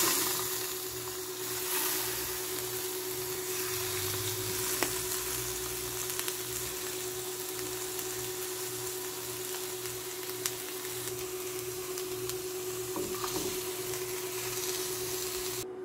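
Pieces of liver sizzling as they fry in a nonstick pan: a steady crackling hiss, with a faint hum underneath.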